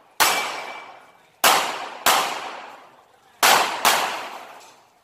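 Five handgun shots fired in an uneven string, the last two close together, each echoing away for about a second.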